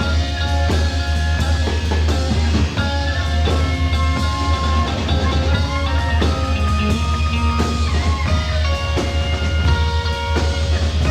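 Live rock band playing an instrumental jam: a drum kit under a line of held melodic notes that step from pitch to pitch, with a heavy, dense low end.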